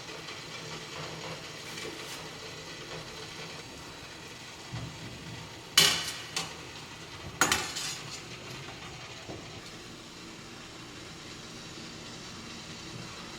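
Pot of baking-soda water simmering with a steady bubbling hiss as bagels are boiled, and a metal utensil clanks against the pot twice a little past the middle.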